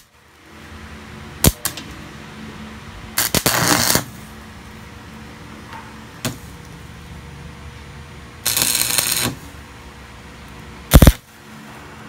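Stick-welding arc crackling in two short bursts, each under a second, as tack welds are laid on a steel gate latch. Sharp metallic clicks fall between them, and the loudest sound, a single heavy knock, comes near the end.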